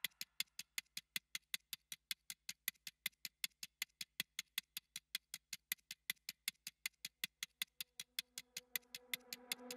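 Steady, quick ticking, about four or five clicks a second, as the opening of a background music track. Near the end a held low tone swells in as the music starts.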